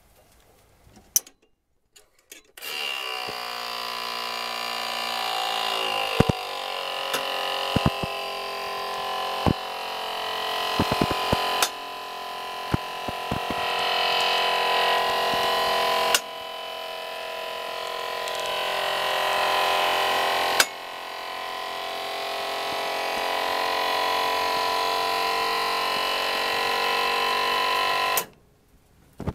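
Electric-hydraulic cab-tilt pump motor on a 2009 Mitsubishi Fighter truck running to tip the cab forward. It starts about two and a half seconds in, its pitch settling after a moment. It runs as a steady whining hum with a few light clicks, then cuts off abruptly shortly before the end.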